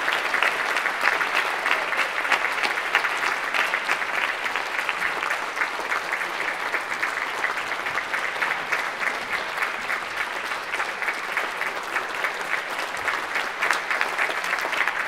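Concert hall audience applauding: a dense, steady patter of many hands clapping.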